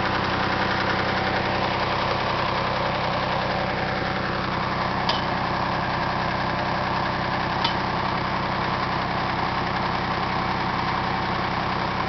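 Kubota's engine idling steadily, with two brief faint clicks about five and seven and a half seconds in.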